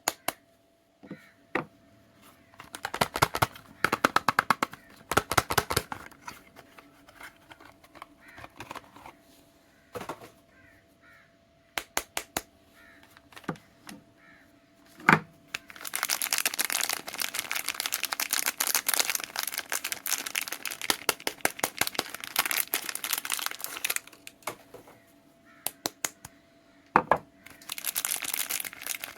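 Soap wrapping being handled and unwrapped: sharp clicks and short crinkles in scattered bursts, then a long stretch of dense crinkling about halfway through and again near the end. A faint steady tone runs underneath.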